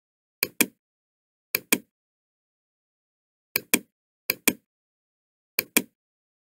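Computer mouse clicks: five quick pairs of sharp clicks, spaced irregularly.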